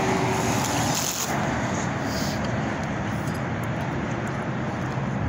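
Steady rumble and hiss of road traffic.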